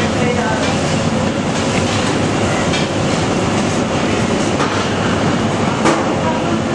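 Hands rubbing and squishing a thick biryani masala against the sides of a large metal pot (handi), over a loud steady rumbling roar, with a sharper knock near the end.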